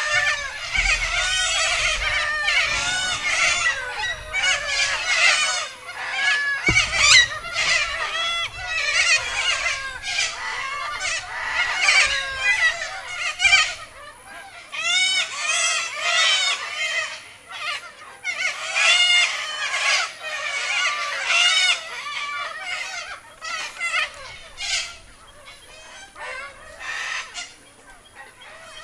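A flock of cockatoos calling, many squawks overlapping, dense at first and thinning out over the last few seconds.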